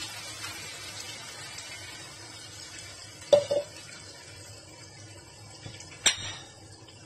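A wok of beans in tomato sauce sizzling with a steady hiss as blended celery puree is poured in. Two sharp knocks stand out, about three and six seconds in.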